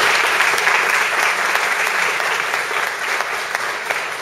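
Audience applauding: a dense round of clapping that eases off slightly toward the end.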